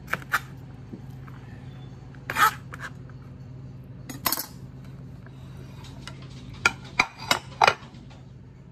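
Kitchen knife chopping shallots on a plastic cutting board, two quick chops at the start, then scattered knocks and clinks of the knife and board, with four sharp knocks in quick succession near the end. A steady low hum runs underneath.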